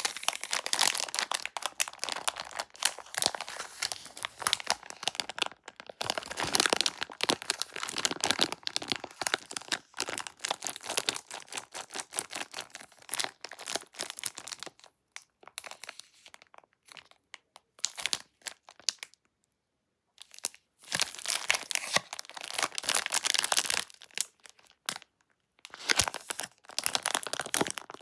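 Plastic candy packaging crinkling and tearing as it is unwrapped, in dense crackly runs with a few short pauses.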